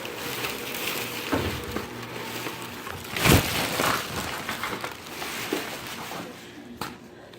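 Paper and packaging rustling and crinkling as torn magazine pages and a card are handled and pulled from a sack, with one louder crinkle a little over three seconds in.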